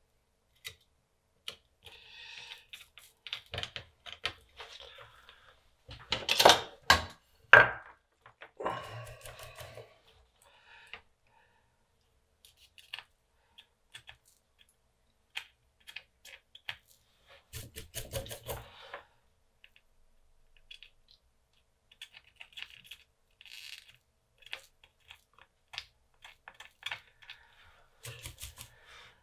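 Soldering work on a circuit board: scattered small clicks, taps and scrapes of a soldering iron tip and the board being handled, with a few sharp loud knocks about six to eight seconds in.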